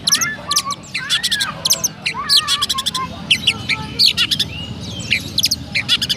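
Oriental magpie-robin (kacer) singing a fast, busy stream of sharp chirps mixed with wavering whistled phrases, mimicking Eurasian tree sparrow chatter.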